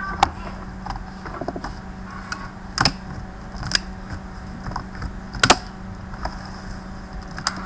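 A Compaq CQ45 laptop keyboard being pressed down by hand to seat it in the palmrest, giving scattered sharp plastic clicks, with a quick double click a little after five seconds.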